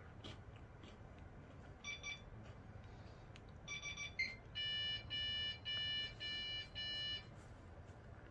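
Electronic beeps: a short beep, then a quick cluster of short beeps with a brief falling chirp, then five longer beeps in an even rhythm.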